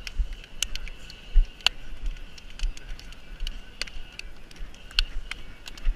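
Sharp hand slaps of high-fives, about a dozen at irregular intervals, some louder than others.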